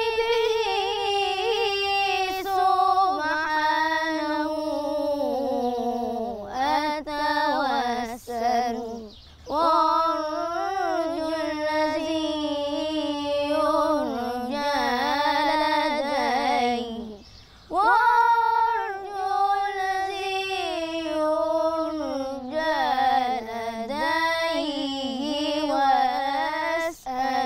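A boy's solo unaccompanied voice singing Islamic devotional chant (inshad) in long, melismatic phrases with wavering, ornamented pitch, broken by brief pauses for breath a few times.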